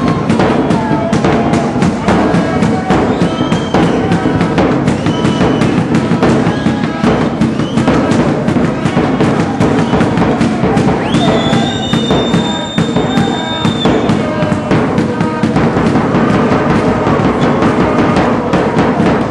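Music with a steady, dense drum beat and a melody line over it; one high note is held for about three seconds just past the middle.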